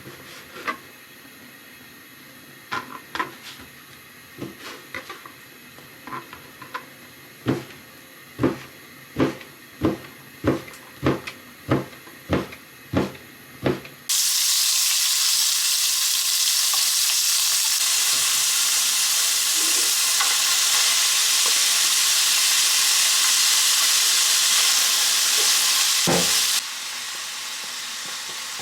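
Food frying in a hot pan: a loud, even sizzle starts abruptly about halfway through and drops to a softer sizzle near the end. Before it comes a run of light kitchen knocks, about one and a half a second.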